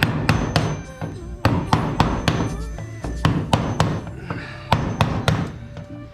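Hammer blows on a chisel cutting rivets out of a crashed Zenith 601XL's aluminium airframe: a run of sharp metallic strikes, two or three a second at uneven spacing, each with a short ring.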